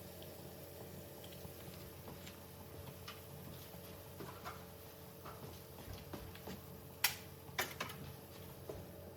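Shakshuka sauce cooking in a pan: scattered small irregular pops and ticks, with a couple of sharper clicks about seven seconds in, over a steady faint hum.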